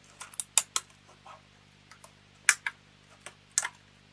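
Sharp clicks and crackles of the plastic packaging of a DDR4 memory kit being handled as the sticks are taken out. A quick cluster of clicks comes in the first second, then two louder clicks about two and a half and three and a half seconds in.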